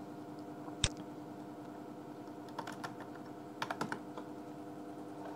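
Computer keyboard keystrokes as a number is typed into a field, in two short clusters past the middle, after one sharp louder click about a second in. A steady low hum runs underneath.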